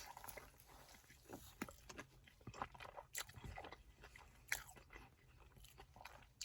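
Faint biting and chewing of a folded slice of wood-fired Neapolitan pizza, with scattered small crunches of the crust.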